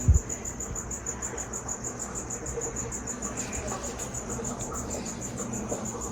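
Crickets chirping in a fast, even, high-pitched rhythm, as feeder crickets do in a reptile shop. A single low thump sounds right at the start.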